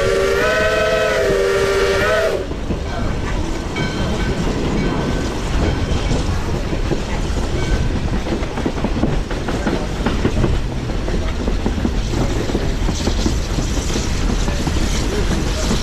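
Little River Railroad #110's steam locomotive whistle sounding a chord that wavers in pitch and cuts off about two seconds in. After it comes the steady rumble of the moving train, with wheels clattering over the rails.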